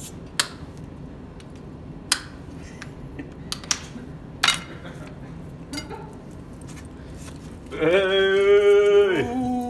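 Plates, cutlery and glassware clinking a few separate times as they are handled on a serving trolley. Near the end, a loud, drawn-out call from a person's voice, held on one pitch and then dropping, followed by a second, lower one.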